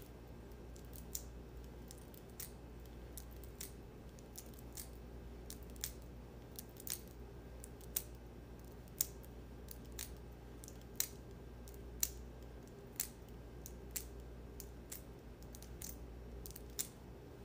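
Crisp finger snaps made with the hands out at the sides, single sharp clicks that are scattered at first and then come about one a second through the middle, over a faint steady low hum.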